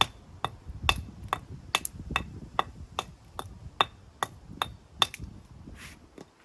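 Hammer blows struck in a steady rhythm, about two and a half a second, each with a short metallic ring. They stop a little after five seconds in, followed by a brief scrape.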